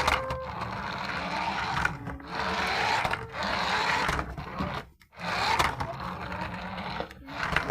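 A toy radio-control car's small electric motor and plastic gears whirring in three spurts, cutting off briefly about two and five seconds in.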